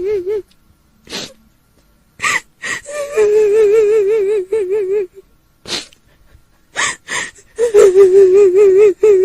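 Kuntilanak ghost cry: a woman's voice wailing in two long, high, wavering notes, broken by sharp gasping breaths in between.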